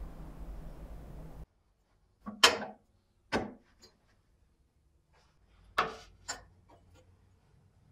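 Sharp metal-on-metal clacks as a square steel tube is set against a welding magnet and a steel rule is placed against the tube: two knocks, the first the loudest, then two more a couple of seconds later, each followed by a lighter tick. Before them a low hum cuts off suddenly.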